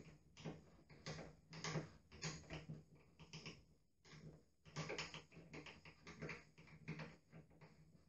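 Hand screwdriver driving a wood screw through a chrome lever handle's rose into the door: a faint, irregular run of small clicks and scrapes as the tip turns in the screw head, with short pauses between turns.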